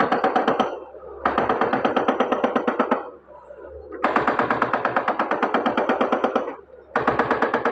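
Rapid, even hammering at about eight blows a second, in bursts of one to three seconds with short pauses between them, typical of an excavator-mounted hydraulic breaker being worked on and off.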